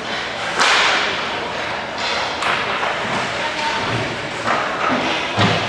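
Ice hockey practice sounds in an echoing rink: sharp slaps of sticks on pucks and skates scraping on the ice, with a dull thud near the end, the kind a puck makes hitting the boards or net.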